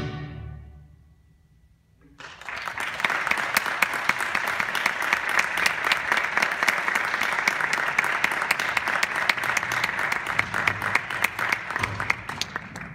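The orchestra's last chord dies away in the hall's reverberation, and after a moment of quiet an audience breaks into steady applause, which tails off near the end.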